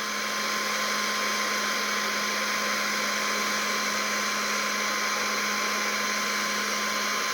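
Hot-air gun blowing steadily with a constant high whine, as it heats plastic to weld shut a washing machine's cut tub after a bearing replacement.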